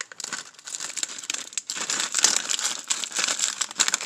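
Foil-lined plastic LEGO minifigure blind bag crinkling and crackling as a hand squeezes and works it, a dense run of sharp little crackles.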